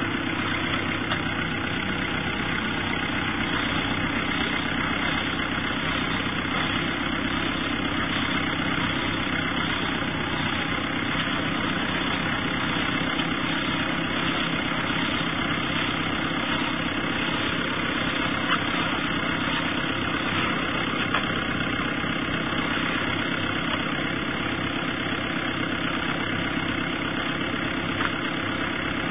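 Tractor engine running steadily at constant speed while powering a bale wrapper, with a few faint clicks from the machinery.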